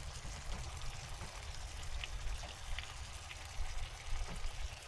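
Burgers and fried rice sizzling in a pan on a portable propane stove: a steady crackly hiss with a few small pops, over a low steady rumble.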